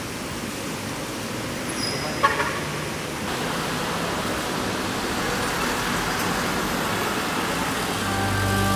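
Road traffic noise: a steady wash of vehicles and tyre hiss on a wet road, with one brief sharp sound a little over two seconds in. Music starts near the end.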